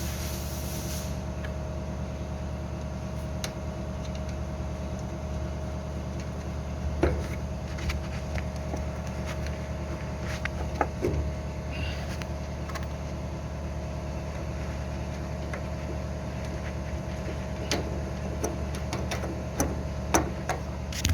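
Scattered light clicks and knocks of the fuel pump cover and its nuts being handled and fitted, over a steady low background hum.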